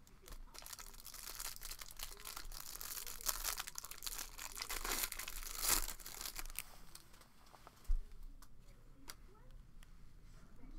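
Trading-card pack wrapper being torn open and crinkled for several seconds, loudest about five and a half seconds in, then a single low thump about eight seconds in.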